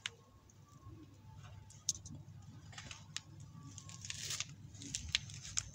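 Cat chewing on a freshly caught rodent: faint, irregular crunches and clicks, a few more closely spaced in the second half.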